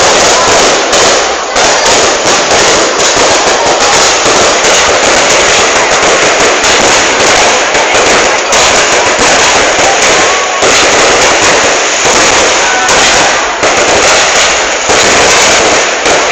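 Festival fireworks display: a loud, dense, continuous barrage of bursts and crackling, with barely a gap between explosions.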